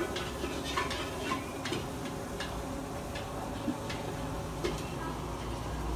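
Motorized stirring machine turning fried rice in a large steel wok, its wire stirrer scraping the pan and clicking at irregular intervals, about once or twice a second, over a steady hum.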